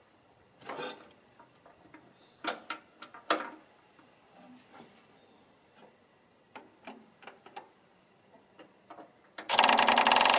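Ford 3000 tractor's starter engaged near the end: a loud burst of rapid, even clatter lasting about a second, after a few faint clicks and knocks.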